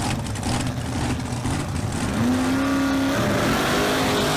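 A motor vehicle's engine running, its pitch rising about two seconds in and holding, then stepping higher near the end, as in revving.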